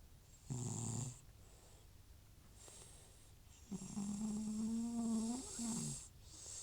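Old cat snoring in its sleep: a short snore about half a second in, then a longer, pitched snore from about four seconds in that drops in pitch at its end. The snoring is a sign of the cat's recurring nasal trouble, which the owner links to a runny nose and sneezing that come back whenever medication stops.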